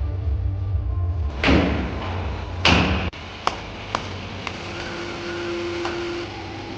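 Background music with a steady low bass and two loud whooshing hits, the music cutting off about three seconds in; then a few sharp clicks and a short low hum.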